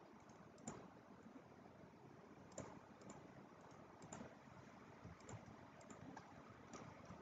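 Faint computer mouse clicks: several single clicks spaced a second or so apart, over near silence.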